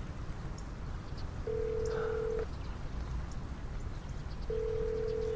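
Telephone ringback tone: two steady single-pitch beeps, each about a second long and about three seconds apart. It is the sound of the call ringing at the other end, not yet answered.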